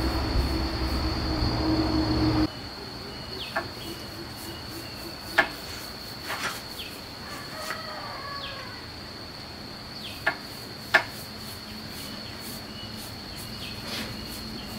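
Paintbrush bristles swishing over the wooden seat of a stool, close and loud, cutting off about two and a half seconds in. Then a steady high insect drone, with sharp taps of the brush against the paint bowl and a few short bird chirps.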